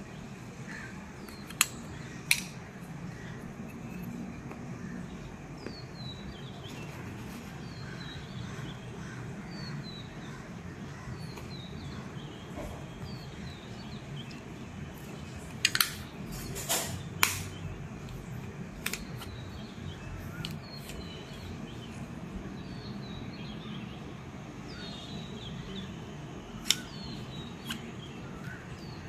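Sharp plastic clicks and taps from handling a GoPro Hero 10 and its extension grip mount: two about two seconds in, a cluster near the middle and a single one near the end. Small birds chirp repeatedly in the background over a steady low background noise.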